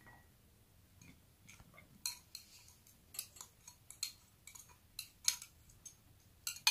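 A plastic spoon clicking and tapping against a small glass bowl while chopped onion is scraped out of it into a ceramic bowl. The light, irregular taps start about two seconds in, with one sharper tap near the end.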